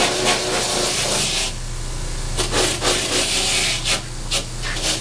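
A wire wheel brush on a grinder motor, running with a steady hum while the suede of a tan combat boot is pressed against it, giving a rough scratching that swells and eases as the boot is moved around on the wheel. The brushing roughs up the suede nap and scrubs the dirt off.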